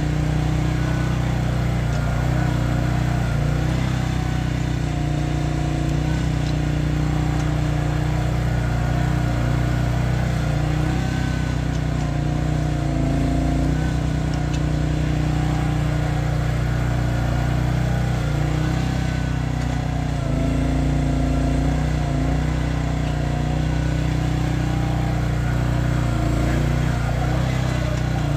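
Chery one-ton mini excavator's Briggs & Stratton 13.5 hp engine running steadily under load while digging, with a higher whine that wavers up and down in pitch as the arm and bucket work.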